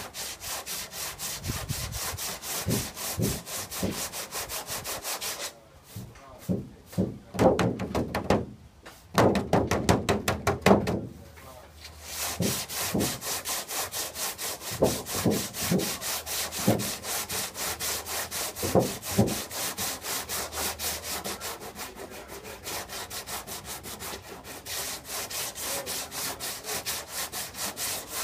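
Sandpaper rubbed by hand back and forth over a car's painted hood, a fast run of scratchy strokes several times a second, with short breaks about six and twelve seconds in.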